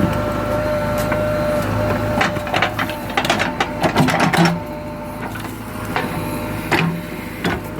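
JCB 3DX Eco Xpert backhoe loader's 49 hp engine running steadily with a held whine, with a cluster of clanks and knocks from about two to four and a half seconds in, after which the machine runs a little quieter.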